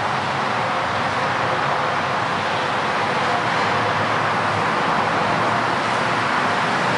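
Steady, even rushing noise with no distinct knocks or tones, holding at one level throughout.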